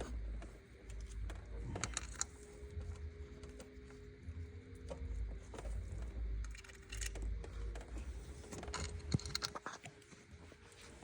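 Small metal clicks and clinks of bolts and hand tools as water pump bolts are set in, coming in short scattered clusters over a low rumble.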